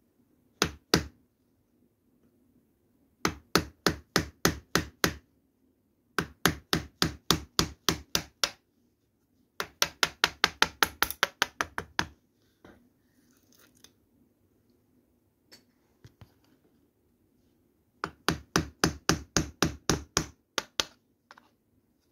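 Wood chisel being struck in quick runs of sharp blows, about five a second, cutting a notch into a wooden board. Five runs, the longest and fastest near the middle, with a pause of several seconds before the last run.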